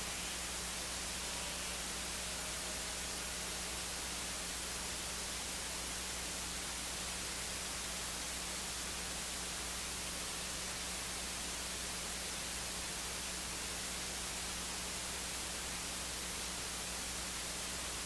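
Steady hiss with a low electrical hum underneath: the background noise of the audio feed, with no music or voices over it.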